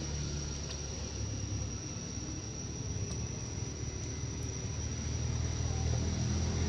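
Steady, high-pitched drone of insects, with a low rumble underneath.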